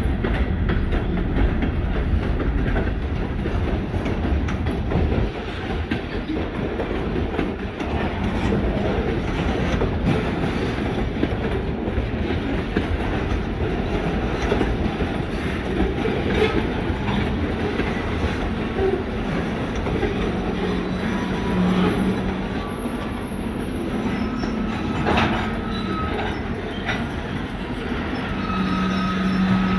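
Freight train rolling on the rail, a steady rumble with wheel clatter. A thin squeal comes in during the last few seconds.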